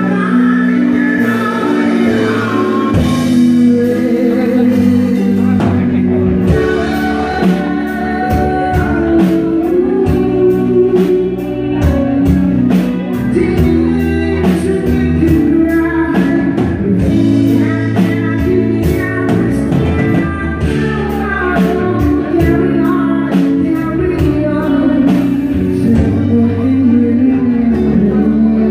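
Live band playing a song: a singer over electric guitar and bass, with a drum beat that comes in about three seconds in.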